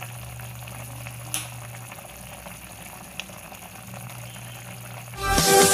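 Fish with tomatoes and chili boiling in an aluminium pot: a soft bubbling over a steady low hum, with two small clicks. Near the end, loud electronic dance music cuts in.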